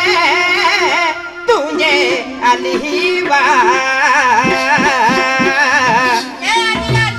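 Adivasi folk music from a songadya party: a wavering, ornamented melody line over steady drone notes, with a run of drum strokes about halfway through.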